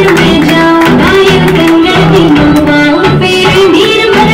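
Loud music with a steady drum beat under a held melody, played for a stage dance.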